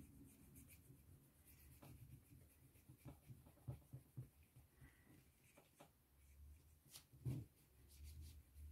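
Faint scratching and light tapping of a water brush working wet wax pastel across a small card surface, with a soft knock about seven seconds in.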